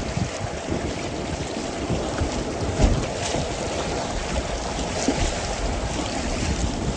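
Swollen river water rushing around a packraft, with wind buffeting the microphone.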